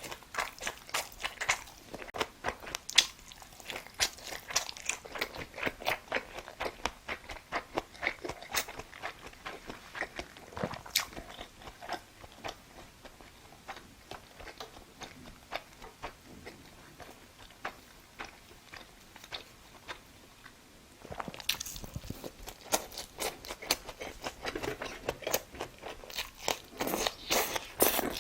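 A person chewing and biting food, a quick run of short mouth clicks several times a second. It grows quieter through the middle and louder again about three-quarters of the way through.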